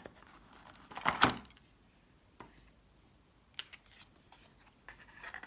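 Handling noises of small items on a tabletop: a sharp click at the start, a brief sliding scrape about a second in, then scattered light clicks and taps.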